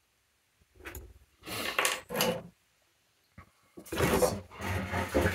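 3D-printed plastic fan housing being handled, rubbing and scraping on a cardboard sheet: a short scrape about a second in, two louder scrapes around two seconds, then a longer stretch of rough scraping near the end.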